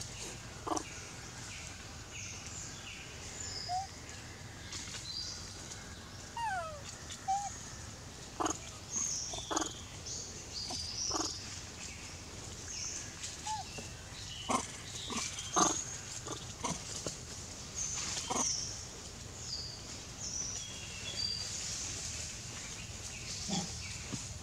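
Long-tailed macaques calling: scattered short calls and a few brief gliding squeaks, loudest around the middle, over steady high chirps in the background.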